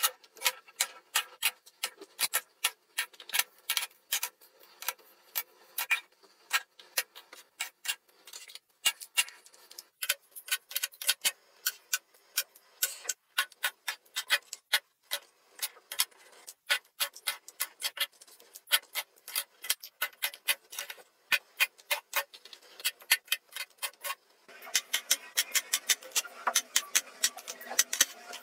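Plastic makeup palettes and cases being set down and slid into clear acrylic organizers: a quick, irregular run of light clicks and taps, plastic on acrylic. About 24 seconds in, a faint steady hiss comes in under the clicks.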